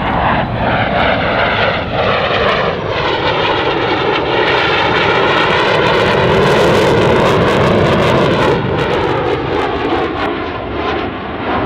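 RCAF CF-18 Hornet's twin General Electric F404 turbofan jet engines as the fighter flies past in a banking turn. The sound swells to its loudest, with a crackle, about six to seven seconds in, with the sweeping, phasing whoosh of a passing jet, then eases off near the end.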